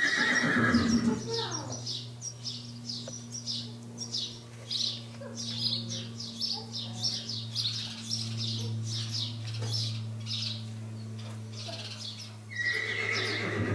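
Equine whinny, high and falling in pitch, about a second long, at the start and again near the end, over rapid repeated bird chirping and a steady low hum.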